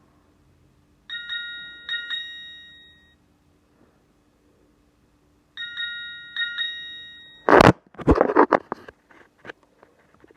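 Nokia 220 alert tone: a short, bright bell-like chime of a few quick notes, played twice about four and a half seconds apart. About seven and a half seconds in, a much louder run of noisy percussive hits begins.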